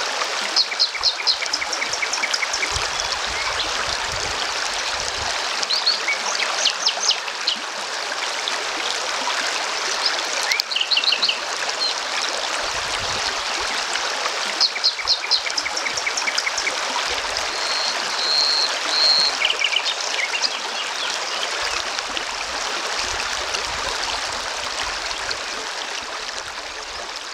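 Shallow river water rushing steadily over stones. Birds call over it every few seconds in quick runs of short high notes, and the water fades a little toward the end.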